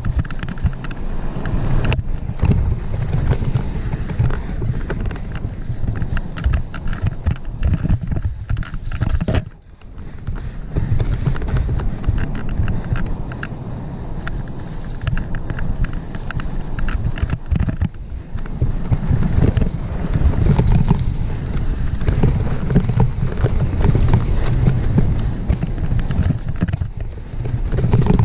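Full-suspension mountain bike riding fast down a dirt singletrack: a steady rumble of tyres over rough ground and wind buffeting the helmet-mounted microphone, with frequent clattering knocks from the bike over bumps. It drops away briefly about ten seconds in.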